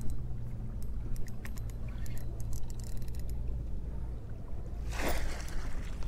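Water splashing as a hooked smallmouth bass is brought to a landing net beside a boat, with scattered small splashes and clicks early on and a louder splash about five seconds in as the fish is netted. A steady low rumble runs underneath.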